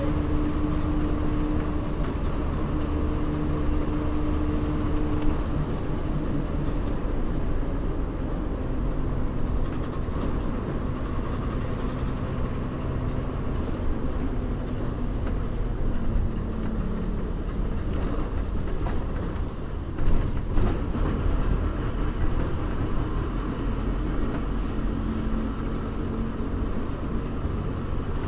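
A bus on the move: steady engine hum and road rumble, with a held engine note that changes pitch a few times. A short cluster of knocks or rattles comes about twenty seconds in.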